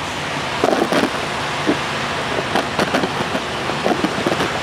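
Steady vehicle noise, with a string of short, irregular clicks and knocks from about half a second in.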